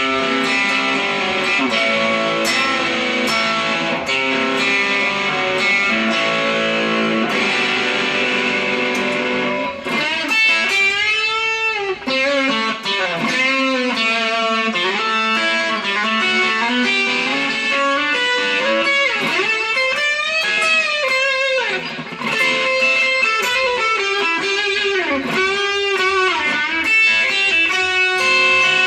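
Epiphone Sheraton electric guitar on its bridge pickup, played through a LoveDrive overdrive pedal (a Zendrive clone). It starts with held overdriven chords. About ten seconds in it moves to a lead line full of string bends and vibrato, then returns to chords near the end.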